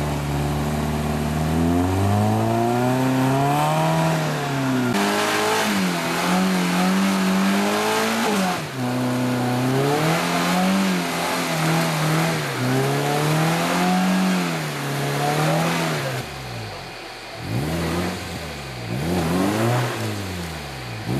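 Suzuki Jimny's engine revving hard under load in deep mud, its pitch rising and falling again and again. In the last few seconds it turns into a series of quick rev blips, about one a second.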